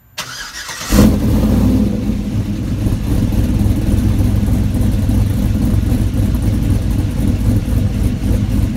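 Cammed 6.0-litre LS2 V8 of a Chevrolet Trailblazer SS starting: a short crank, then it catches with a rev about a second in and settles into a steady, deep-rumbling run.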